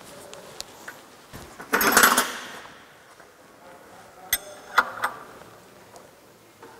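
Metal tools and parts being handled at an engine block: a burst of clattering about two seconds in, then three sharp metallic clicks a little later.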